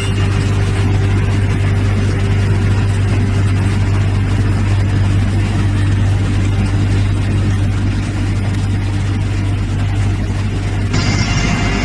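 Six-spindle four-sided wood moulder running: a steady, loud machine drone with a strong low hum under a dense hiss. The sound changes character near the end.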